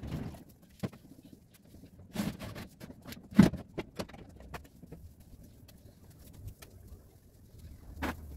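A string mop being worked over a tiled floor: wet scuffing and scattered knocks of the wooden handle, with one louder thump about three and a half seconds in.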